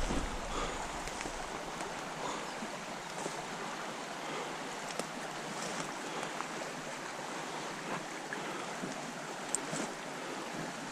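Small creek running: a steady, even rush of flowing water, with a few faint clicks.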